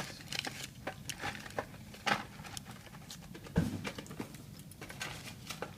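Irregular light clicks and taps of small metal lock parts and tools being handled on a bench, with a couple of louder knocks about two seconds in and halfway through.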